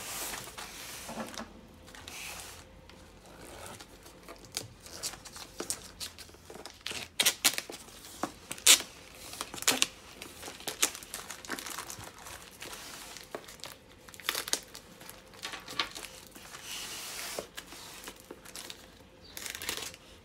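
Plastic wrapping and packing tape around a parcel's boxes crinkling and tearing as they are cut and pulled open with a knife, in irregular sharp crackles and snaps, loudest about seven to ten seconds in.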